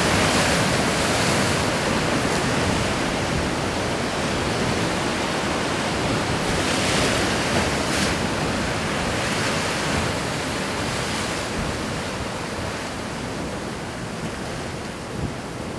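Wind rushing over the microphone with sea wash from waves against a harbour breakwater, a steady hiss that swells in gusts near the start and about seven seconds in, then eases slowly.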